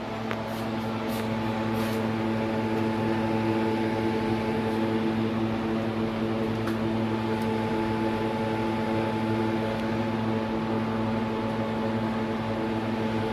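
Steady machine hum holding several pitches at once, with a few light clicks in the first couple of seconds.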